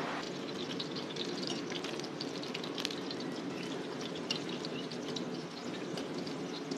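Dough pieces deep-frying in a large wok of hot oil: a steady sizzle with many small, sharp crackles and pops, over a steady low hum.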